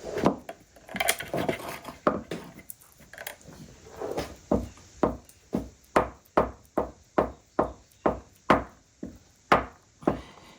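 Irregular clatter of tools and wood being handled, then a steady run of sharp knocks on wood, about three a second, from about halfway through.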